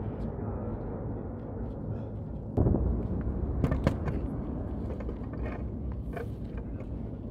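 Erupting volcano rumbling steadily and deep, with a sudden heavier blast about two and a half seconds in as the vent's lava fountain surges.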